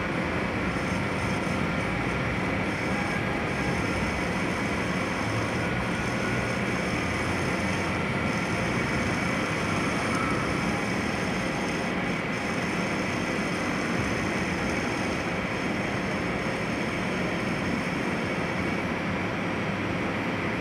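Metal lathe running steadily, a continuous mechanical drone.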